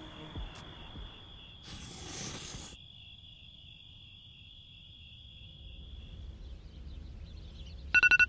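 Crickets chirring in a steady high drone, with a brief rushing whoosh about two seconds in. Just before the end, a rapid run of sharp electronic beeps starts.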